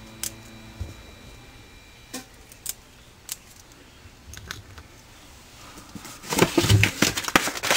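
Small metal parts being handled on a workbench: a few separate light clicks, then from about six seconds in a dense metallic clatter and rattle, the loudest part.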